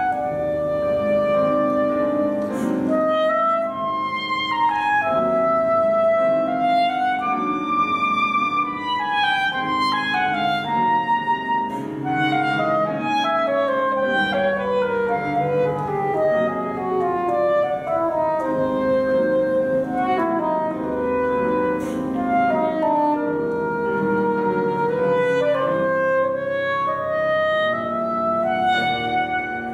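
Soprano saxophone playing a melody of many moving notes over piano accompaniment.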